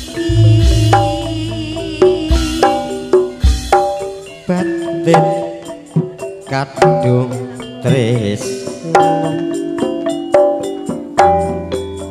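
Javanese gamelan-based campursari music: hand-played kendang drum strokes over struck metallophone notes that ring and fade, at a steady, lively beat.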